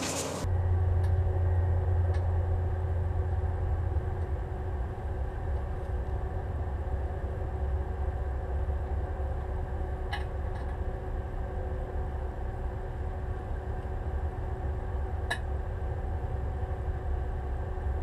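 Inverter microwave oven running with a steady low hum, and a handful of sharp snaps as the metal pieces inside (lead birdshot, brass shell casings, a screw) arc and spark.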